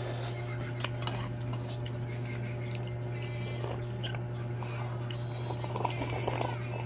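Occasional light clicks of eating utensils against a bowl, over a steady low hum.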